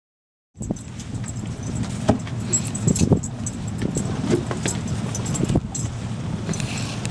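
A half-second of silence at a cut, then scattered clinks and knocks over a steady rush of wind and water on a sailing ship's deck.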